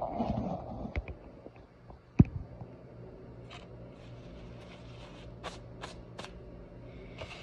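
Paper bib rustling as it is tucked in and smoothed at the collar, with one sharp knock about two seconds in and a few light clicks later on. A steady low hum runs underneath.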